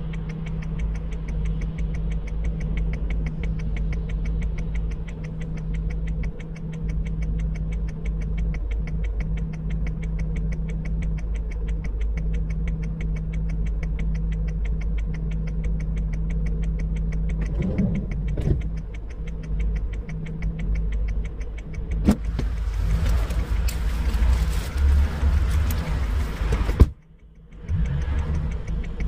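An engine idling steadily, with a fast, even ticking over its low hum. About three-quarters of the way through, a louder rushing noise joins for a few seconds, and near the end the sound cuts out for about a second before the idle returns.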